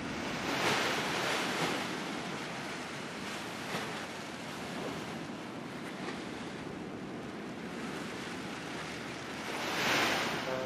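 Wind rushing over the microphone, a steady noise that swells in gusts about a second in and again near the end.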